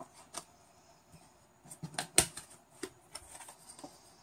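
Tarot cards being handled on a table: a scattering of light clicks and taps, the loudest a little past halfway.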